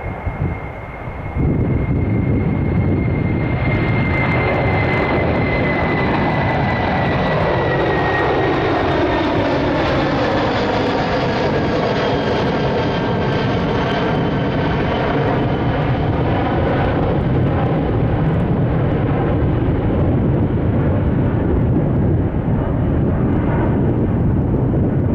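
Airbus A330-300 airliner's twin jet engines at takeoff thrust as it climbs out: a loud, steady jet roar that grows louder about a second in, with a high whine that slowly falls in pitch as the aircraft passes and moves away.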